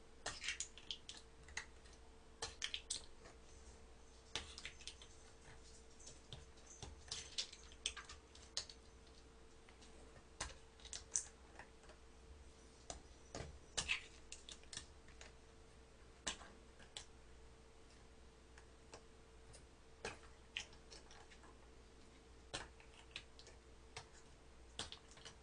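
Faint, irregular clicks and taps of a thin wooden stick punching through the foil lids of small yogurt-drink bottles packed close in a tray, coming in small clusters, with a faint steady hum underneath.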